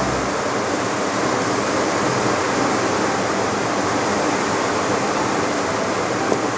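Steady, even rushing noise with no speech or music, with one short click near the end.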